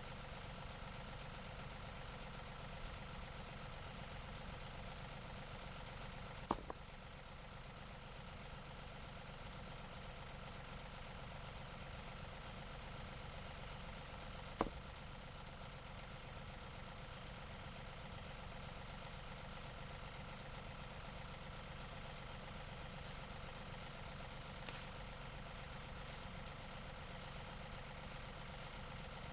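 Tractor engine running at a steady speed, with two sharp knocks: one about six seconds in, the other about fourteen seconds in.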